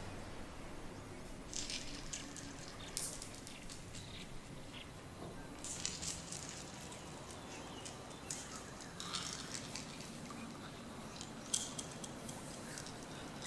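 Small crystal stones (malachite, apatite and rose quartz) jiggled together in the hands, clicking lightly against each other in several short bursts. A faint steady hiss runs underneath.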